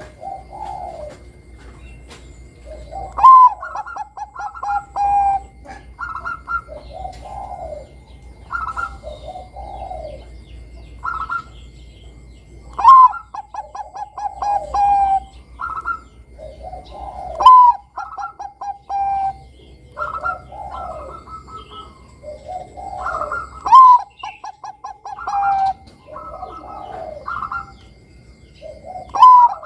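Perkutut Bangkok (zebra dove, Geopelia striata) singing its staccato cooing song. Five loud phrases come a few seconds apart, each a rising note, then a quick run of short clipped coos and a drawn-out falling trill, with softer coos in between.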